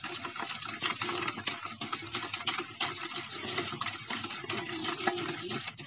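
A metal spoon beating a runny egg, oil and sugar batter in a stainless steel bowl: rapid, regular clinking and scraping of spoon on bowl as the sugar is beaten until it dissolves.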